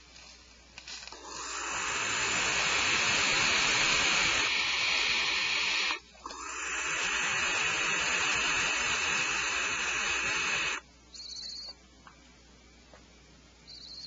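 Barn owl nestlings hissing: two long, loud, rasping hisses of about five seconds each with a short break between, then two brief higher-pitched calls near the end.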